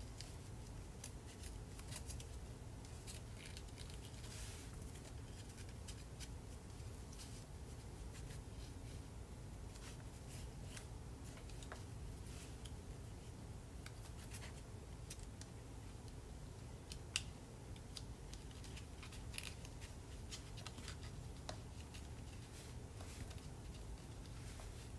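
Origami paper being folded and creased by fingers: faint, scattered crinkles and scratchy ticks, with one sharper tick about 17 seconds in, over a steady low hum.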